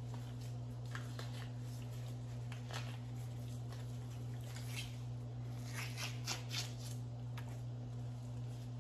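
Gloved hands and a paper towel peeling the membrane off the back of a rack of pork spareribs: a scatter of short rustles, busiest about five to seven seconds in, over a steady low hum.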